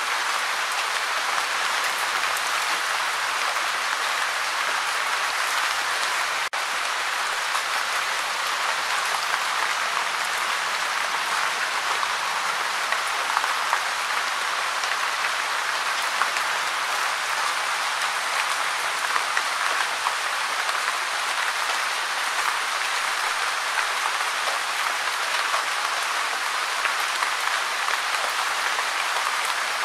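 Gentle rain falling steadily: an even hiss of many small drops, with single louder drop ticks now and then.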